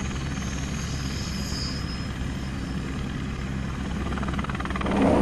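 Helicopter running steadily overhead with a rapid, even rotor chop, growing louder near the end.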